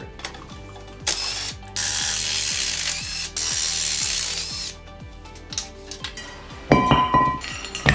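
Cordless impact wrench hammering the brake caliper bolts off an axle, in three bursts: one short, then two of over a second each. Near the end comes a sharp metal clank with a brief ring.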